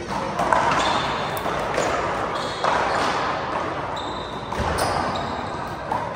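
Small rubber handball rally: repeated sharp smacks of the ball off hands, the front wall and the floor, each with a short echo.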